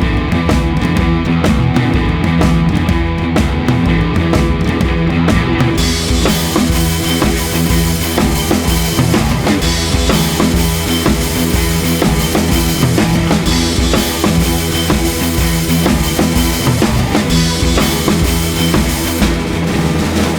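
Rock music with a steady drum-kit beat and guitar; the cymbals and upper range come in about six seconds in.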